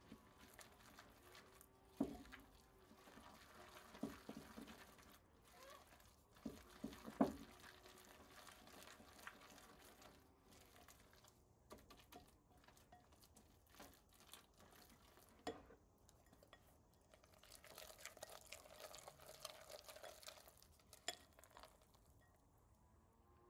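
Faint sounds of batter being mixed in a bowl: a utensil stirring and scraping, with several light knocks against the bowl and a longer stretch of scraping near the end.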